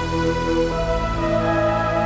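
Background music of sustained, held chords; the chord changes under a second in.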